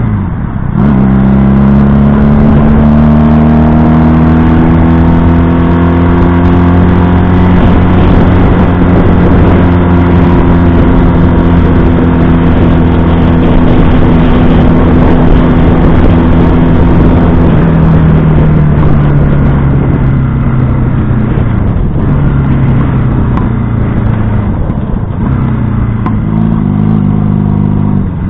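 1970 Honda CB175's air-cooled parallel-twin engine under way: after a gear change right at the start its note climbs and then holds steady. About two-thirds of the way through the note sinks gradually as the throttle comes off and the bike slows, ending on a lower, quieter note.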